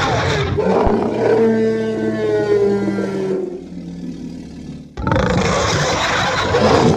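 Dinosaur monster roar sound effects for the Phantosaur. A harsh, hissy roar settles into a long, lower bellow held at one pitch that fades out. A second roar breaks in suddenly about five seconds in.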